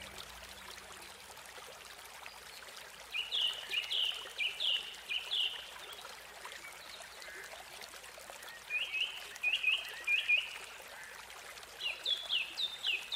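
Water running over a small rocky cascade as a steady wash, with a small songbird giving three runs of quick, downward-sweeping chirps: about three seconds in, near nine seconds, and near the end.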